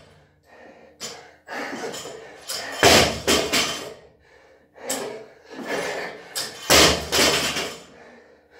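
A 50 kg barbell with rubber bumper plates dropped onto a rubber floor mat after power cleans, landing with a heavy thud twice, about four seconds apart.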